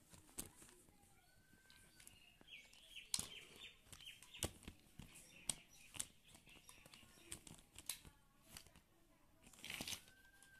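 Plastic action figures and toy blocks handled and set down on a table: faint, irregular light clicks and knocks with rustling between them.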